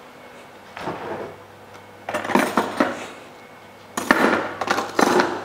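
Kitchenware being handled: bowls and utensils clinking and clattering in separate bouts. There is a faint knock about a second in, a run of clinks around two to three seconds, and the loudest clatter near the end.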